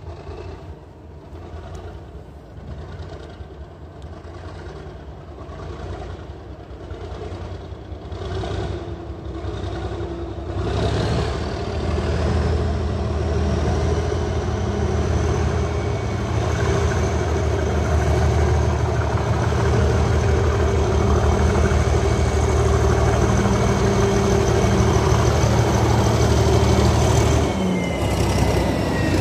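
Class 37 diesel-electric locomotive, with its English Electric V12 engine, approaching at low speed and growing steadily louder, with a thin high whistle over the engine note. Near the end it draws level and its tones drop in pitch as it passes.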